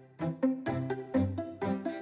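Background music played on string instruments, with short, sharply started notes about four a second.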